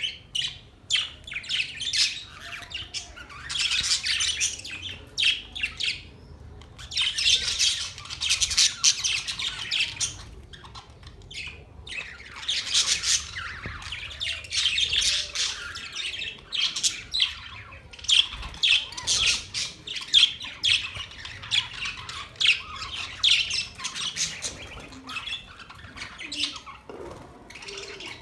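Budgerigars warbling and chirping, a busy chatter of quick high-pitched calls and squawks that comes in bouts of a few seconds with short pauses between.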